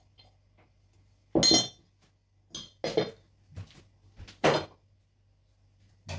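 Several short knocks and clinks of kitchenware being handled, the loudest about a second and a half in and again past the middle.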